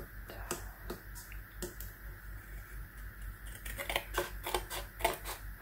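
Scissors cutting a sheet of slightly thick paper: a run of short snips and crunches, coming thicker about four seconds in.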